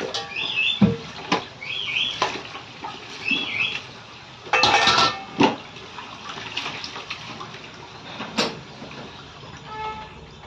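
Steel utensils clinking and knocking as dishes are washed by hand at a sink, with a short rush of water a little under five seconds in. A bird chirps three times in the background in the first few seconds.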